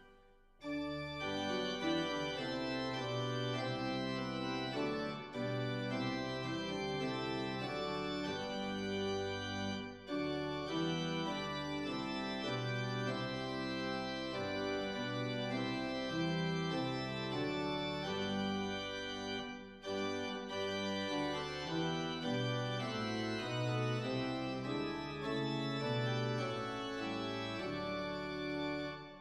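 Organ music, slow sustained chords changing every second or two, with brief breaks between phrases.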